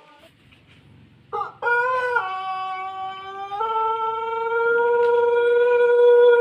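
Pelung rooster crowing: one long, drawn-out crow starts about a second in. Its pitch steps down, then back up, into a long held note.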